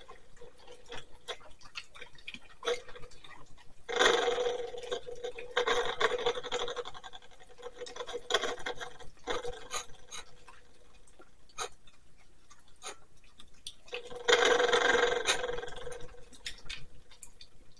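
Two small dogs eating and licking food off ceramic saucers on a tile floor: many quick clicks and licks of tongues and teeth on the plates, with two louder stretches of scraping, about four seconds in and again near the end.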